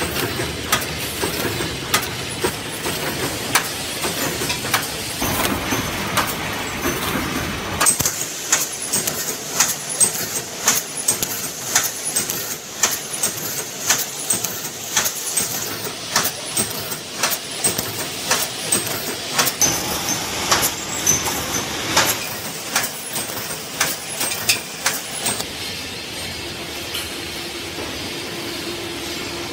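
A 3–6 mm wire mesh welding machine running in production: a steady rhythm of sharp clanks as it cycles through its weld strokes, with a hiss in the middle part.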